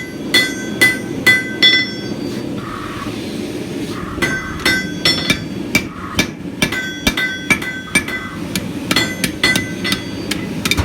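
Hand hammer striking hot steel on an anvil while forging a small bracket. The blows ring, with four quick ones, a pause of about two seconds, then a longer, faster run.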